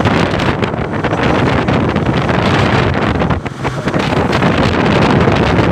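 Loud, gusty wind buffeting the microphone, with the rush of a boat on choppy sea beneath it; a brief lull about three and a half seconds in.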